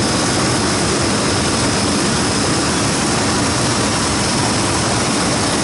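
Walk-in cooler condensing unit running with its side panel off: condenser fan and compressor making a steady, even whoosh with a faint high whine over it. The system is running on R-404A after charging and superheat adjustment, with readings the technician finds about right.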